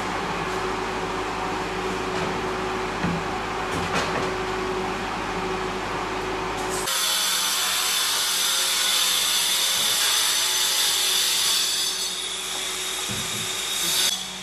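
A power tool running steadily. About seven seconds in, the sound switches abruptly to a brighter, hissing whine that holds to the end, with a brief loud peak just before it.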